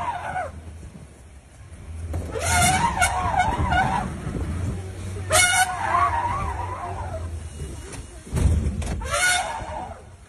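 Asian elephant bull trumpeting in repeated harsh, wavering blasts, each one to two seconds long and about three seconds apart, with a safari jeep's engine running underneath.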